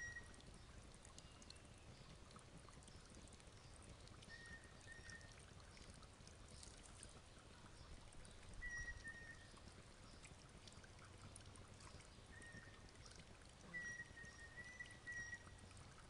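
Faint splashing and dribbling of water as a bird bathes in a birdbath. A short, steady high whistle sounds several times, a few seconds apart.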